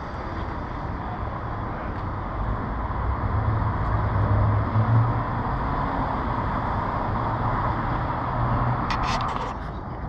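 City street traffic: motor vehicles going by with engine and tyre rumble that swells in the middle as one passes close. A short cluster of sharp, high sounds comes near the end.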